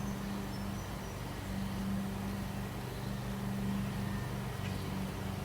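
Small engine of a lawn mower running steadily: a low, even drone that swells and fades slightly.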